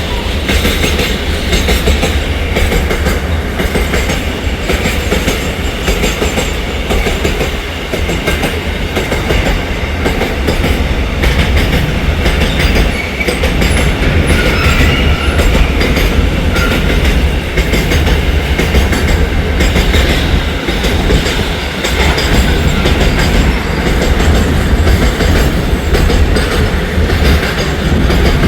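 A train running past at close range: steady low rumble and continuous clatter of coach wheels over the rail joints.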